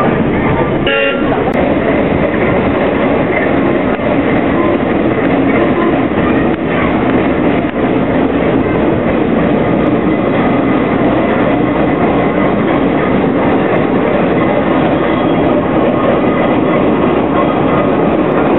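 Steam traction engine, a steam road roller, running as it drives along, a loud steady noise.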